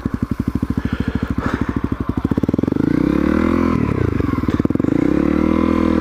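Honda CRF250L's single-cylinder four-stroke engine running at low revs with an even, rapid beat, then rising in pitch about three seconds in, dipping briefly and climbing again.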